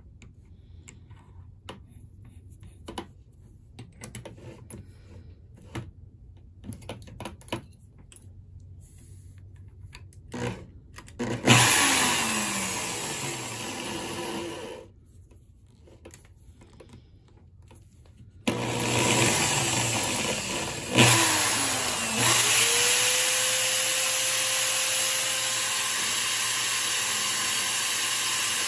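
Light clicks and taps as a steel mandrel and slug are fitted into a keyed drill chuck. About halfway through, an electric drill motor starts, runs a few seconds and winds down with falling pitch, then starts again, whines up to speed and runs steadily, spinning the slug in the chuck.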